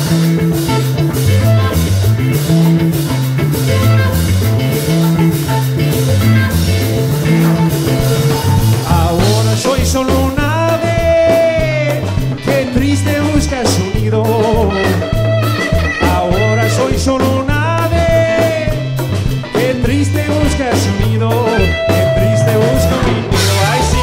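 Background music: an upbeat song with a bouncing, repeating bass line and drums, and a singer coming in about ten seconds in.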